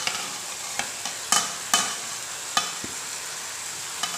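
Tomato-onion masala sizzling steadily in a kadhai while mashed boiled potato is tipped in off a steel plate, with about six sharp metal clinks of the plate against the pan.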